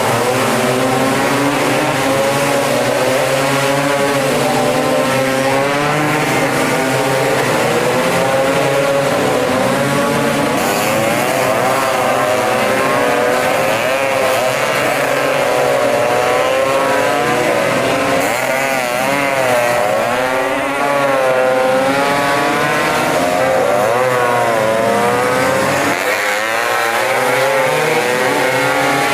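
Several two-stroke racing scooter engines screaming at high revs, their overlapping pitches rising and falling as they accelerate and shift.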